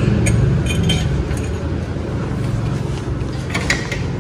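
A few light metallic clinks and taps from hard parts being handled, over a steady low hum.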